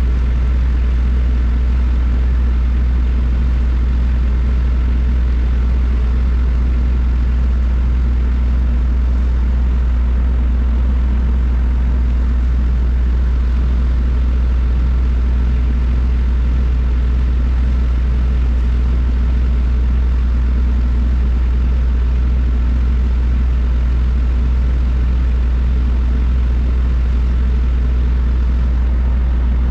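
A small boat's engine running steadily under way, a low hum that holds one pitch without change.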